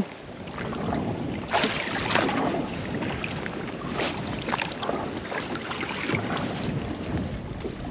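Water slapping and lapping against the hull of a small rigid inflatable boat with its engine off, in irregular splashes, with wind buffeting the microphone.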